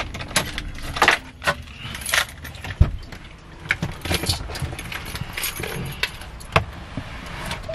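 Metal handcuff chain jangling, with scattered clicks, knocks and rustling, as the cuffed pair shift about in the car seats to get out.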